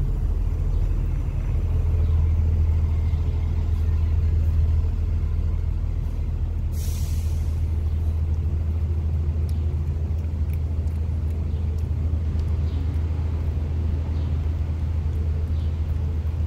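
Steady low rumbling hum of an engine or machine, with a short hiss about seven seconds in.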